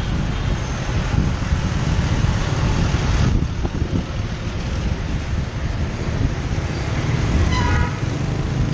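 Urban street traffic heard from a moving motorbike: a steady low rumble of scooter engines and traffic, with a short horn beep near the end.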